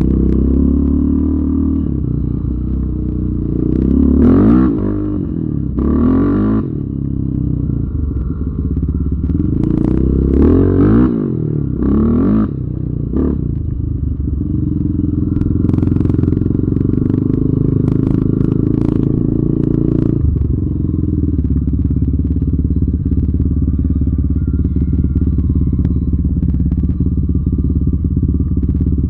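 Yamaha Raptor 700R ATV's single-cylinder four-stroke engine revving up and down four times, then running steadily, with scattered clatter.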